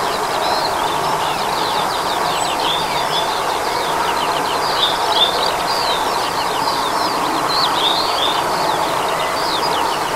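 Steady, far-off jet noise from a landing Bombardier CRJ900 regional jet's rear-mounted turbofan engines, with a songbird singing a continuous run of quick chirps and warbles over it.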